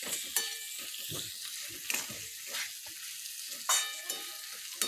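Cluster beans frying in oil and masala in a metal kadhai, giving a steady sizzle, while a metal spatula stirs them, scraping and knocking against the pan every second or so, loudest a little before the end.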